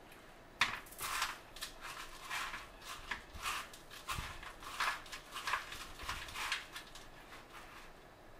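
Crushed Flamin' Hot Cheetos crumbs crackling and rustling in a bowl as an avocado slice is pressed and turned in them for its coating: a faint, irregular string of short, crisp crackles, about two a second.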